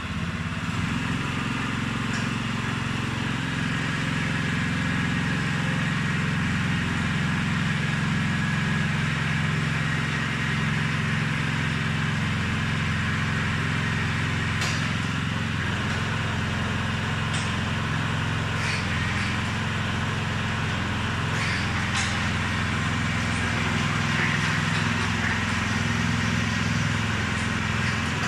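Small engine of a crawler-type concrete mixer running steadily at an even speed, with a few faint clicks now and then.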